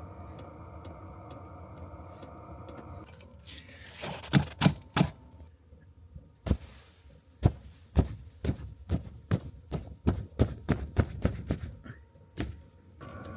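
A steady hum with a thin whine, then a run of sharp, irregular knocks or crunches, about two a second at their busiest. The hum comes back near the end.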